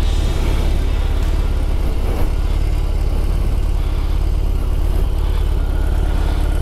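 BMW R18's 1802 cc air- and oil-cooled boxer twin running steadily at low revs, with an even, low pulsing beat.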